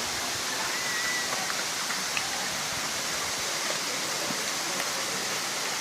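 Steady rushing of a waterfall, water cascading over rock into pools.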